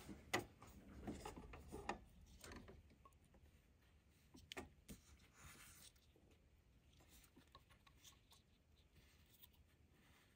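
Faint handling noise: a scattering of small clicks, taps and rubbing of a plastic syringe being fitted onto a printer's plastic ink damper. It is busiest in the first few seconds, with a couple of sharper ticks about halfway through.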